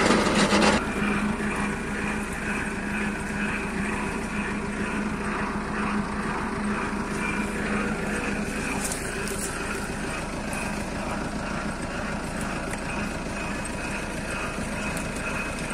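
An engine or motor running steadily with a constant hum. A louder rush of noise drops away about a second in.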